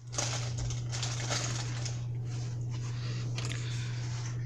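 A steady low hum under rustling, crackling handling noises that are busiest in the first two seconds.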